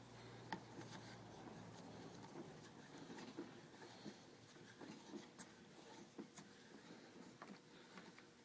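Faint rubbing and small scattered clicks of a scooter mirror's threaded stem being turned by hand into its mount on the handlebar.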